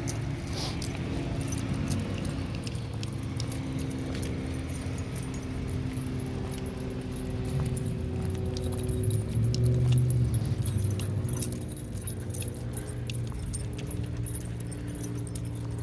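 Metal leash clips and dog tags jingling constantly as a pack of dogs walks on leashes. Under it, a motor vehicle's engine hums steadily and grows louder about ten seconds in.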